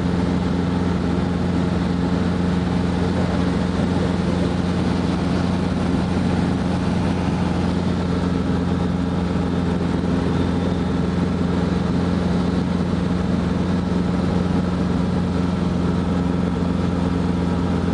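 Robinson R22 helicopter's piston engine and rotors running steadily in flight, heard inside the cabin as a loud, even, low drone.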